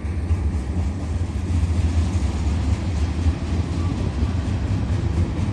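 Double-stack container well cars of a BNSF intermodal train rolling past, making a steady low rumble.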